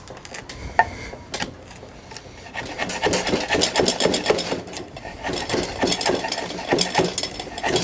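Hand sanding wood with 80-grit sandpaper wrapped around a wooden block, in rapid back-and-forth scratching strokes, to bring the surface flush. A few sharp clicks come in the first couple of seconds before the steady strokes begin.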